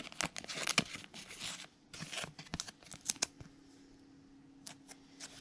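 2021 Bowman Platinum baseball trading cards being slid and flicked through the hands, a quick run of small clicks and rustles for about three seconds. After that it goes quieter, leaving a faint steady hum and a few light ticks.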